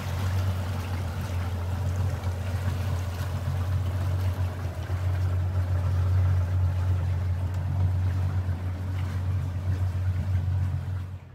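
Outboard motor of a Jeanneau NC795 cabin boat running steadily under way: a constant low drone with a hiss of rushing water over it.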